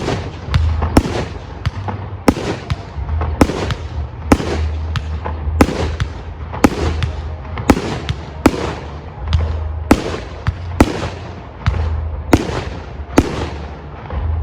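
Aerial firework shells bursting in quick succession, about one to two sharp bangs a second, each trailing off in an echo.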